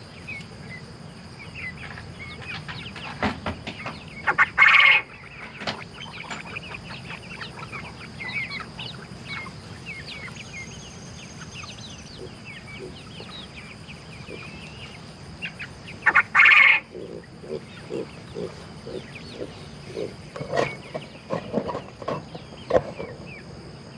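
Chickens clucking and chirping, with two loud squawking calls, one about five seconds in and one about sixteen seconds in, and a run of short clucks near the end.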